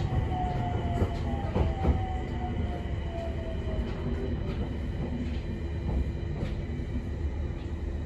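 Cabin running sound of an Abukuma Express AB900 series electric train: the whine of its Mitsubishi IGBT VVVF inverter falls in pitch over the first few seconds, over a steady wheel-and-track rumble with a few sharp clicks of the wheels over rail joints. The falling whine is the train slowing for the coming station.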